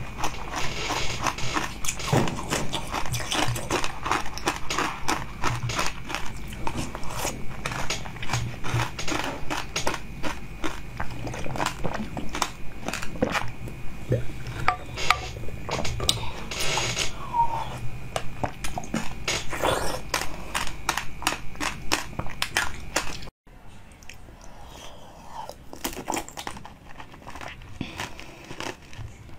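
Close-miked eating of jelly from test tubes: dense, rapid crunching, biting and wet mouth sounds, with a few short squeaky sucking sounds near the middle. About three-quarters of the way through it cuts abruptly to softer, sparser mouth sounds.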